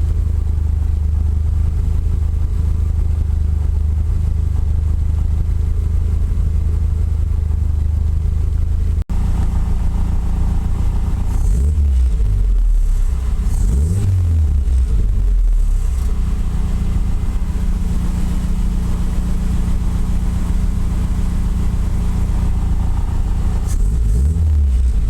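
Toyota AE86 Corolla's four-cylinder engine idling steadily, then revved in a few quick blips that rise and fall in pitch after a short break about nine seconds in.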